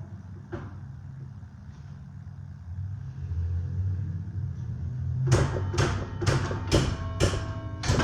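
Church tower bells struck one at a time, about two strikes a second, each note ringing on. The bells start about five seconds in, after a low rumble with a few faint clicks.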